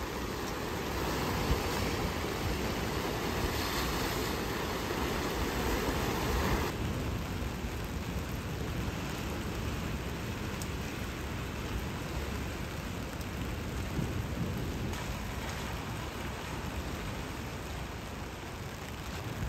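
Sea waves washing over dark rocks in the rain, a steady rushing noise with no single strokes; about seven seconds in the sound abruptly becomes quieter and thinner.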